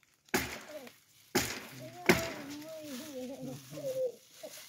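Three sharp knocks or bangs, about a second apart, then a high-pitched voice that wavers up and down for about two seconds.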